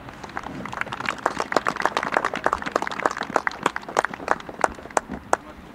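Scattered hand clapping from a small group of people, a few separate claps at a time rather than a dense roar. It starts right at the beginning, is thickest in the middle and thins out towards the end.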